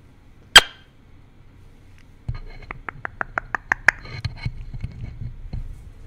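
A male eclectus parrot's beak tapping and nibbling on a microphone's metal grille, heard right at the mic: one sharp click about half a second in, then from about two seconds in a quick run of taps, about seven a second, and scattered clicks over a low rumble of the mic being bumped.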